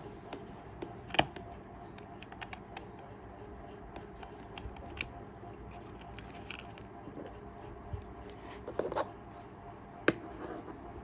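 Irregular light clicks, taps and scrapes of hands and small tools working on a Kaiser travel alarm clock. There are two sharper knocks, about a second in and again near the end, and a brief run of scraping clicks shortly before the second knock.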